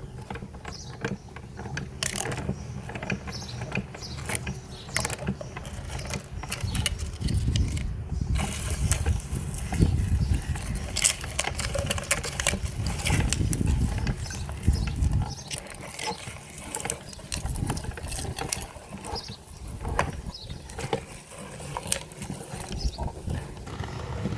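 Meat grinder at work, grinding with a dense run of sharp clicks and cracks over a low rumble; the rumble drops away about two-thirds of the way through while the clicking goes on.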